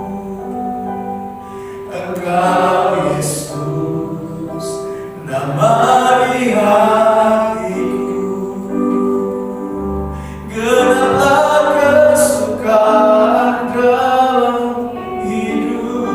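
Indonesian worship song sung by a group of voices, with instruments.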